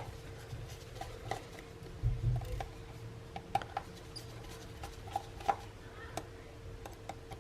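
Light, scattered clicks and taps of small metal repair tools on a smartphone's internal plate and screws, with a soft bump about two seconds in, over a faint steady hum.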